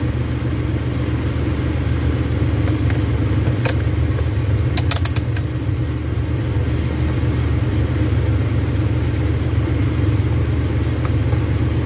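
An engine or motor runs steadily with a low hum, a few sharp clicks sounding about four and five seconds in.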